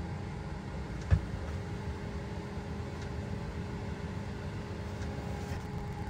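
Autoterm Air 4D diesel air heater running just after ignition, its burner and fan making a steady low rumble with a faint steady hum as it catches and builds toward full power. A single short thump about a second in.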